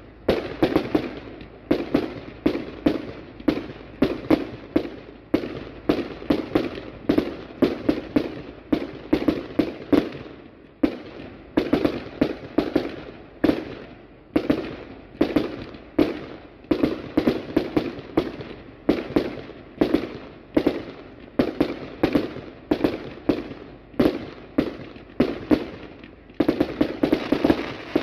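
Aerial fireworks display: a rapid, unbroken series of shell bursts, about two or three bangs a second, each with a short echoing tail, with a denser flurry near the end.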